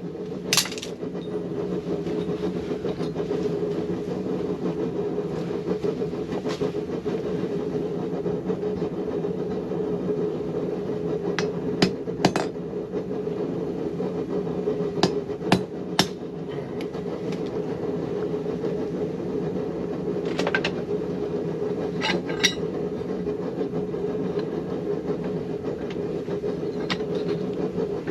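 Hammer striking steel on an anvil while an awl is forged, about ten separate blows at irregular intervals, some in quick pairs or threes, over a steady droning hum.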